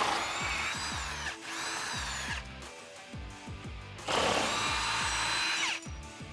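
Milwaukee M18 cordless impact wrench hammering out factory body bolts through an 18 mm socket, in two runs of about two seconds each, the motor's whine dropping in pitch as each run ends. Background music with a steady beat plays underneath.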